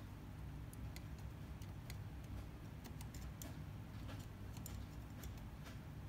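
Faint, irregular small ticks and clicks from soldering on a microwave's control circuit board, the iron tip and solder wire working a joint, over a low steady hum.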